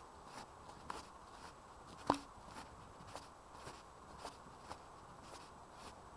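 Footsteps of a person walking at a steady pace, about two steps a second, with a sharper click about two seconds in.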